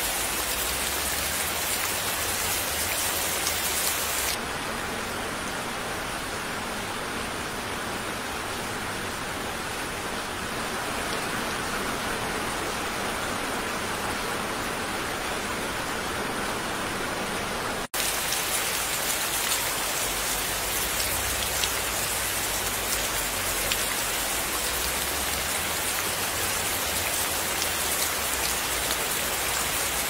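Steady rainfall, a dense even hiss of drops. About four seconds in the sound turns softer and duller. Just past halfway a split-second dropout cuts it, and it comes back brighter.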